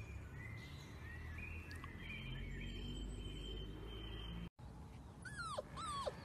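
Siberian husky puppy giving short, high yelping cries near the end, about four in quick succession, each falling sharply in pitch. Before that only faint background.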